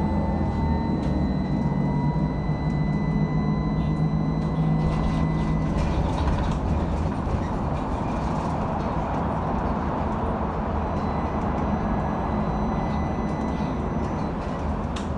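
Inside a LAZ E301 trolleybus in motion: the electric traction drive whines, its tone rising slowly in pitch over the first several seconds, over a steady low rumble of the running vehicle. After about six seconds the drive sound eases and the rumble carries on.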